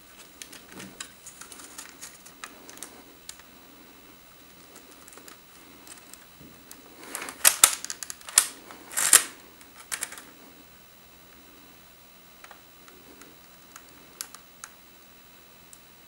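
A LEGO brick model rifle being handled, with scattered clicks and rattles of its plastic parts. About seven to ten seconds in there is a louder run of clacks and short scrapes, and a few lighter clicks follow near the end.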